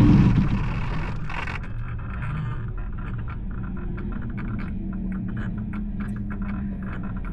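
RC airplane's propeller motor throttling back within the first second or so. It settles to a quieter steady low hum, with many short clicks and scraping rattles over it.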